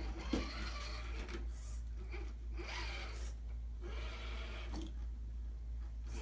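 Electric motor and geared drivetrain of an Axial SCX10 II Deadbolt RC crawler whirring in several short spurts as it crawls over obstacles.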